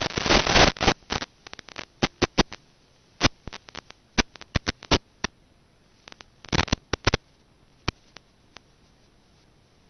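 Irregular crackling and clicking static from the analog FPV video link's audio channel, with no microphone fitted on the plane. The clicks come thick in the first second, then in scattered clusters, with a burst a little past halfway, and thin out to a few single clicks.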